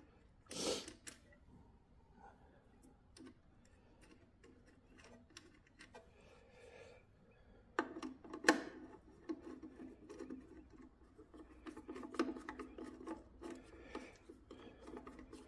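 Faint metal clicks and scraping from handling wire lugs and a link plate on generator terminal studs and turning a screwdriver on the terminal screws: one sharp click about half a second in, then from about eight seconds a run of quick small clicks and scratching.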